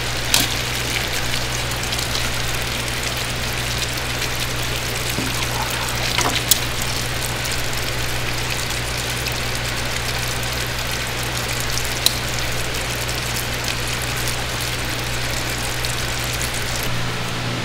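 Steady rush of running water over a constant low machine hum, with a few sharp clicks and knocks.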